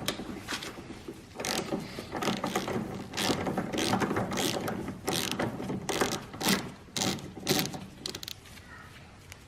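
Socket ratchet wrench clicking in repeated strokes as a 10 mm headlamp mounting bolt is undone, dying away near the end.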